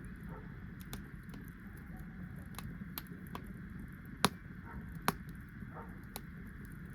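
Wood fire crackling: scattered sharp pops and snaps over a steady low rush, with two louder pops a little past the middle.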